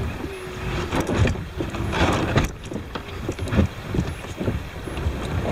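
Kayak paddling sounds: irregular splashes of the paddle in the water and knocks of the paddle against the plastic kayak hull, with wind buffeting the microphone.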